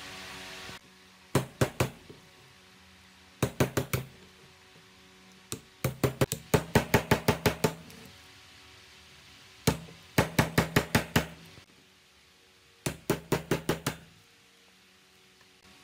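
Hammer striking a screwdriver used as a chisel to cut the old copper windings out of an electric fan motor's stator. Sharp metallic knocks come in quick bursts of about three to twelve strikes, several a second, with short pauses between bursts.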